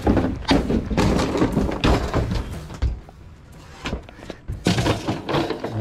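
An orange pry bar levering wooden cabinet panels loose: a quick series of wooden knocks and bangs, a short lull about three seconds in, then more knocks.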